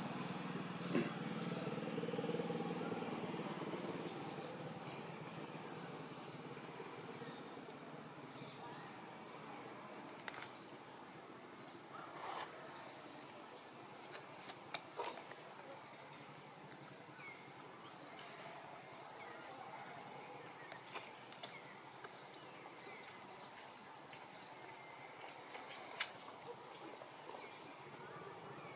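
Outdoor ambience of a steady high insect drone with short high chirps repeating every second or two. Faint low voice-like sounds come in the first few seconds, and there are a few soft clicks.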